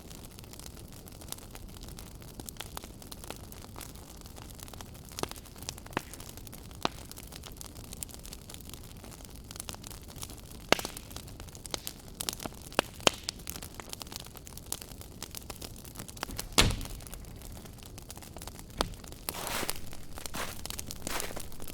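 Wood fire crackling: a low steady hiss with scattered sharp pops, one louder pop about two-thirds of the way in, and denser, louder crackling near the end.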